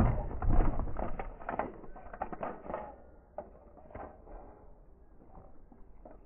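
Small irregular splashes and drips of water from a northern snakehead twisting on a lip gripper held over the water. They are thick for about three seconds, then thin out to faint scattered drips as the fish settles.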